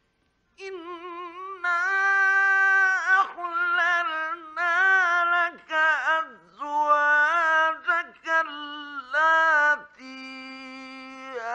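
A male Quran reciter chanting in the melodic Egyptian mujawwad style, drawing out long ornamented notes with a wavering vibrato and pausing briefly for breath between phrases. The voice comes in about half a second in. It is an archival 1950s Egyptian Radio recording.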